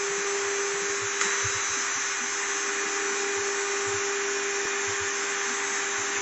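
DEK-1325 CNC router spindle engraving a wooden board: a steady, high whine over a constant hiss of the bit cutting the wood, with one faint tick about a second in.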